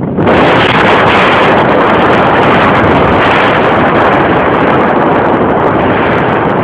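Loud, steady rush of wind buffeting the microphone of a camera carried in paraglider flight.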